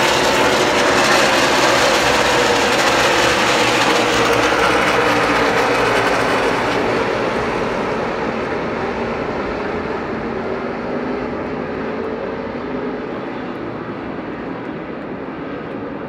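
A field of NASCAR Cup stock cars with V8 engines running past at speed, a loud, dense engine noise with shifting pitch. It fades gradually over the second half as the cars move away.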